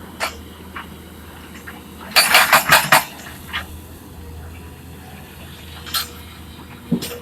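Sharp metallic clinks and clatter over a steady low hum, with a burst of rapid clattering about two seconds in and single clinks scattered before and after.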